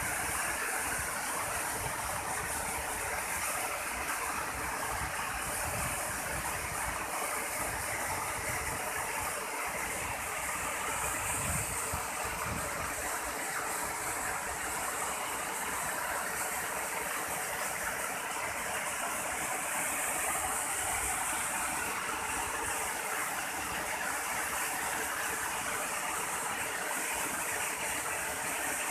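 Waterfall cascading down a rocky face: a steady, unbroken rush of water.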